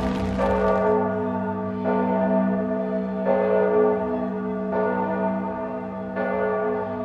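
A large church bell tolling: five strokes about a second and a half apart, each one ringing on over a steady deep hum.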